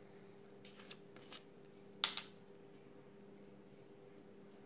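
Faint handling noises: a few soft clicks and one brief rustle about two seconds in, over a low steady hum.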